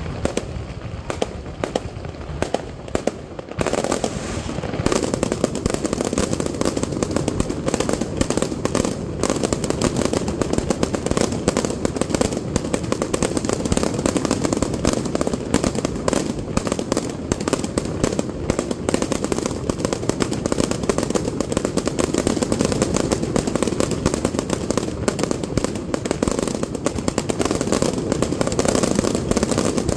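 Fireworks display: a rapid barrage of bangs and crackling from shells and crackling-star effects. It is sparser for the first few seconds, then becomes a dense, continuous volley from about four seconds in.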